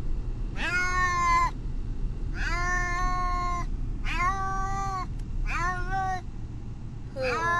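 A distressed domestic cat meowing: four drawn-out meows about a second each, with a fifth starting near the end.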